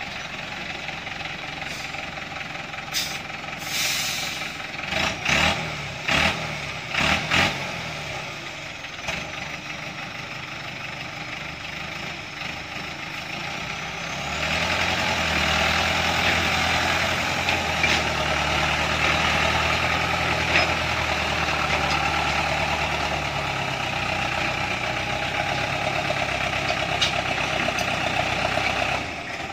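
Small truck's engine running at a low idle, with several sharp knocks a few seconds in; about halfway through it revs up and holds a louder, steady pull under load as the truck climbs out of the mud up the slope.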